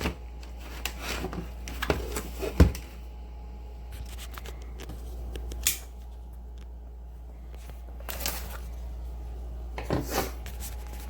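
Hands handling a boxed screwdriver set and its packaging: scattered rustling and light clicks, with one sharp knock a little over two and a half seconds in, over a steady low hum.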